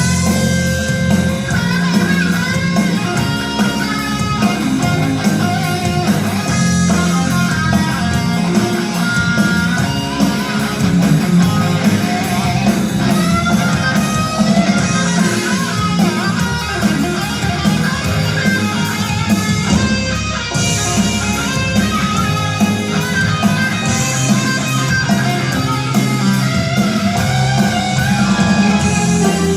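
Music with a prominent guitar line over a steady bass, loud throughout.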